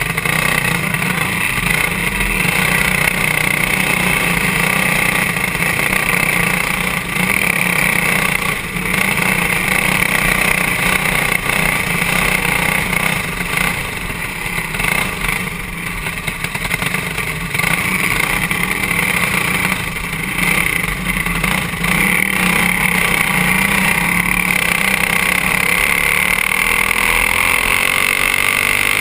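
Single-cylinder Honda GX200-clone engine of a stock-class racing kart running hard, heard from the driver's seat, with brief dips in level several times and the pitch climbing again near the end.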